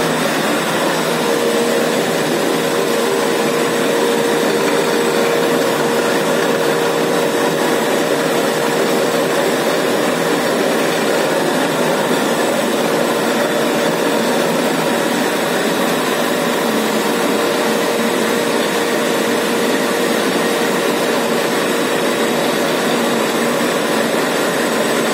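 Film printing machine running steadily as the printed film web feeds over its rollers: a loud, even mechanical drone with a mid-pitched whine that grows fainter about halfway through.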